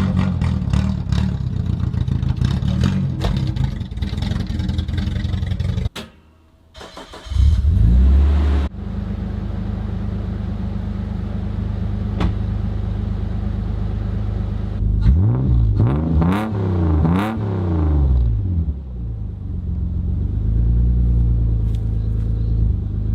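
Car engine running, then revved several times in quick succession about two thirds of the way in, before settling back to a steady idle. A brief sudden drop at about six seconds sounds like an edit cut.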